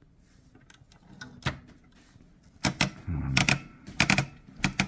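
Hermes 3000 typewriter's platen knob being turned to feed the paper. It is faint at first, then from a little past halfway there are several loud bursts of ratcheting clatter from the paper-feed mechanism, a sound that is a little bit loud on this machine.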